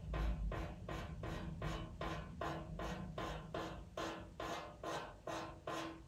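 Pastel pencil scratching across Pastelmat paper in short, light, quick strokes, about three a second, putting in fur hairs.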